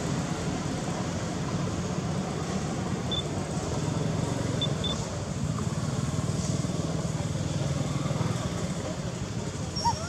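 Steady low outdoor rumble with no clear events, and a few faint, short high chirps about three and five seconds in.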